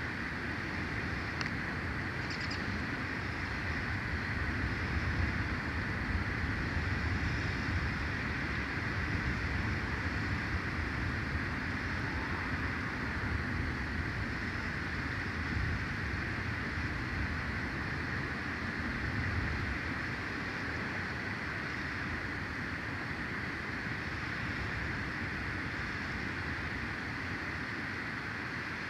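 Steady outdoor background noise: an even hiss with a low rumble beneath it, and two faint, short, high chirps a couple of seconds in.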